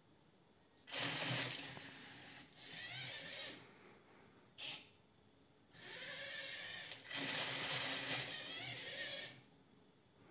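RC servo motors of a 3D-printed four-axis robotic arm whirring as its joints move in turn. There are three bursts with short pauses between: one of about two and a half seconds, a brief one, then a longer one of nearly four seconds.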